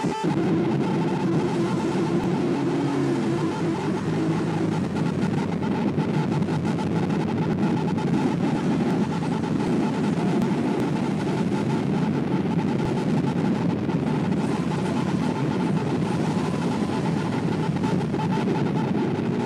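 Harsh noise music: a dense, unbroken wall of distorted electronic noise, heaviest in the low and middle range. A few held drone pitches fade out within the first few seconds.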